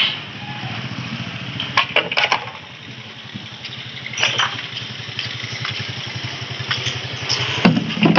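Engine idling steadily with a fast even low pulse, with a few sharp knocks and clatters on top, the loudest near the end.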